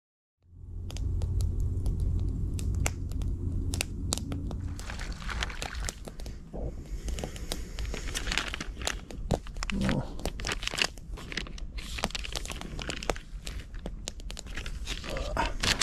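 Crinkling and rustling of a food pouch and its packaging being handled, with many sharp clicks and crackles as a small fire is lit. A low rumble fills the first few seconds.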